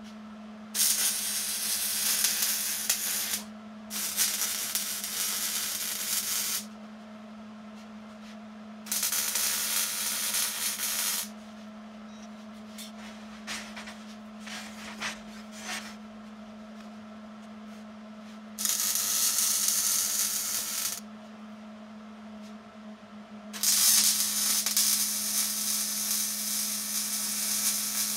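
Arc welding on steel tubing: five runs of steady crackling hiss, each two to five seconds long with short pauses between, the last beginning about four seconds before the end. A steady low hum continues underneath.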